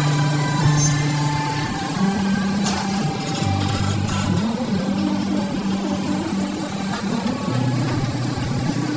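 Heavy diesel machinery running: a hydraulic excavator working over dump trucks. Its low drone holds one pitch for a second or two, then shifts up or down several times.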